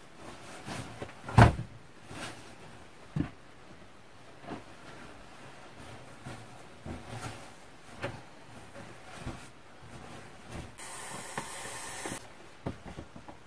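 Scattered knocks and rustles of bedding and gear being handled. Near the end comes a steady hiss of a second or so: air being blown into an inflatable pillow.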